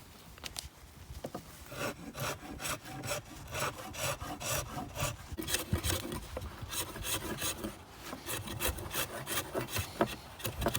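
Axe edge scraping bark off a wooden stick in rapid repeated rasping strokes, starting about a second and a half in.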